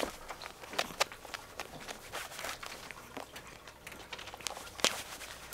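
A cat clawing and kicking a fabric kick toy on a quilted cushion: irregular scratching and rustling of claws on cloth with scattered sharp clicks, the loudest about a second in and again near the end.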